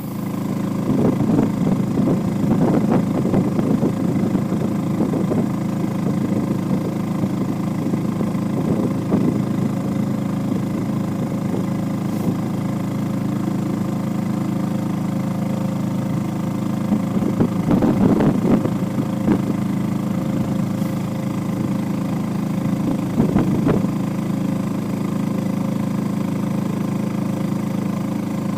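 A small boat's outboard motor running at a steady speed as the boat moves over choppy water, with a few louder rushes of wind noise on the microphone along the way.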